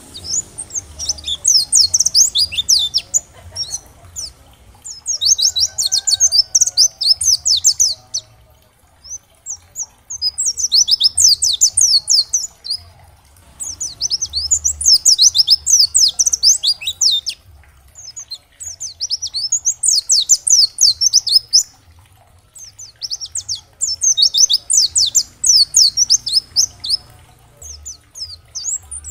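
White-eye (pleci, Zosterops) singing in fast, high twittering phrases of rapid down-slurred notes, each burst a few seconds long with brief pauses between.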